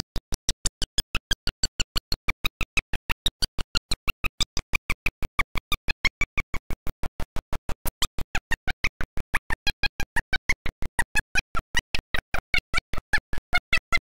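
Digital audio glitch: the sound is chopped into short, evenly spaced pulses about five times a second with silence between, a steady stuttering buzz in place of the preacher's voice.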